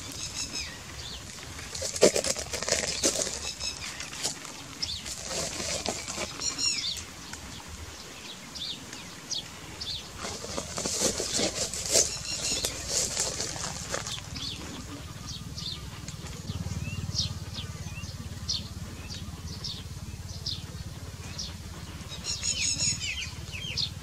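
Red-wattled lapwing calling: sharp high-pitched notes repeated in quick bursts, several times over, with scattered single notes between.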